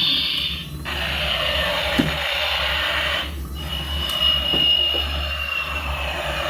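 Electronic sound effect from a battery-powered toy vehicle playing through its small, tinny speaker: a steady alarm-like sound with a high tone that slides slightly down near the end, broken by two short gaps.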